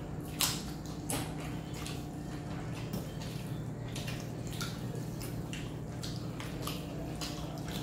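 Wet eating sounds: hands squishing dal-soaked rice on steel plates, with chewing and lip smacks, as short irregular wet clicks over a steady low hum.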